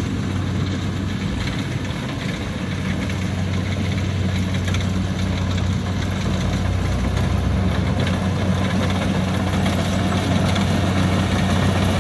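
Kubota DC70 combine harvester's diesel engine running steadily at working speed, a constant low hum over mechanical rattle, gradually getting louder.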